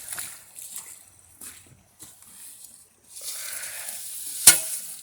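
Crackling rustle of dry leaves and brush being pushed through as a hidden shovel is pulled out, with one sharp knock about four and a half seconds in.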